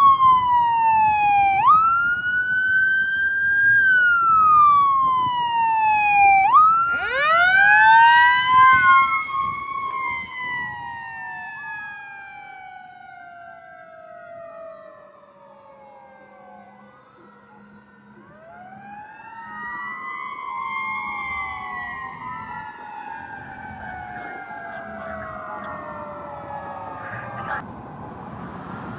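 Fire department emergency vehicle sirens. One wail sweeps down in pitch and jumps sharply back up every few seconds. About seven seconds in, a second siren winds up and down beside it. The sirens fade away, then several overlapping siren sweeps rise and fall again.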